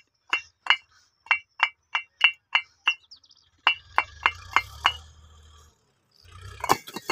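Fired clay bricks struck together by hand, each strike a short ringing clink, about three a second. After a brief pause come four more clinks, then one louder knock near the end.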